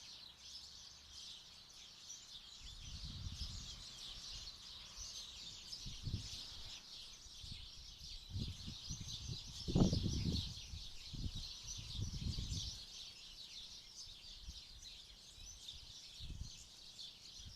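Many small garden birds chirping and twittering continuously. Several low rumbling thumps come in between, the loudest about ten seconds in.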